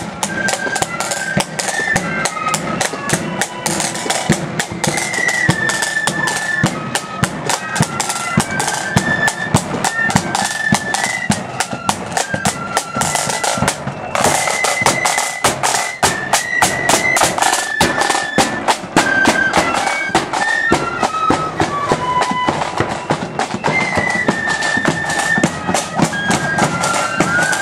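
Marching flute band playing a march: flutes carry the tune in unison over rapid side-drum rolls and beats.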